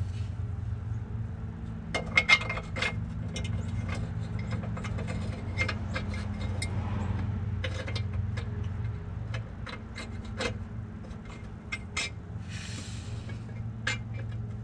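Sharp clicks and taps with short scrapes as a K-member brace spacer is pushed by hand into the hole in the Mustang's frame rail, with a cluster of loud clicks about two seconds in and a brief scrape near the end. A steady low hum runs underneath.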